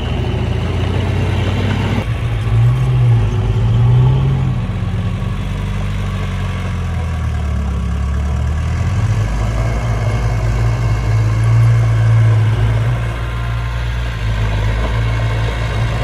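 Bulldozer's diesel engine running while pushing sand. Its pitch rises and falls with the load and sags lower for a couple of seconds near the middle.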